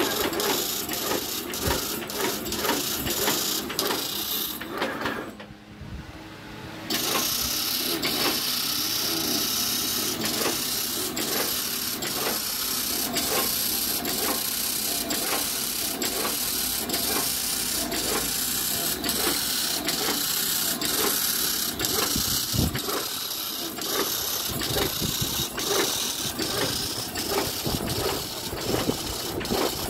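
Fully automatic agarbatti (incense stick) making machine running, clacking in a steady rhythm about twice a second as it rolls sticks. The sound dips briefly about five seconds in.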